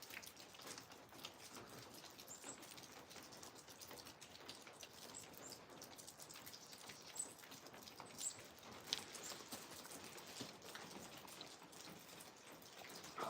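Freezing rain pattering faintly as dense, irregular fine ticks on icy surfaces, with a couple of sharper clicks past the middle.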